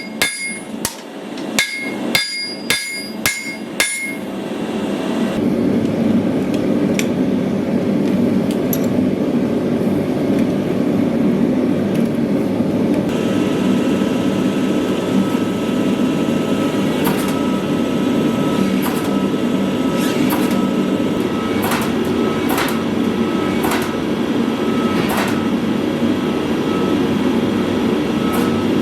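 Hand hammer striking a steel longsword blade on an anvil, the blows ringing, about two a second. After about four seconds the blows stop and a steady rushing noise takes over, with scattered lighter clinks and taps.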